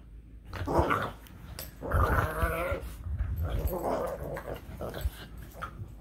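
Boston Terrier making odd growling play noises in several short bouts.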